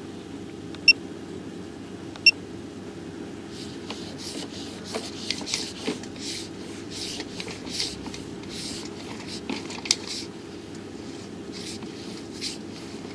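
Sewer inspection camera's push cable scraping and rubbing as it is fed along the pipe, in a run of short hissy scrapes through the middle of the stretch, over a steady low hum. Two short high beeps come about one and two seconds in.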